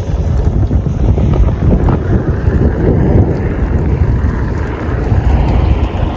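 Strong wind gusting across the microphone, a loud, uneven rushing noise.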